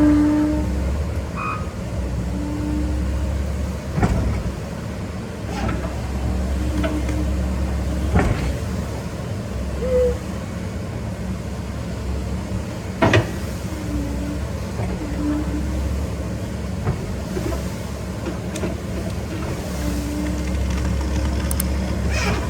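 Volvo EC140 excavator's diesel engine running steadily under load, with short hydraulic whines coming and going as it pushes against a tree. Several sharp cracks or knocks ring out over it, about 4, 8 and 13 seconds in.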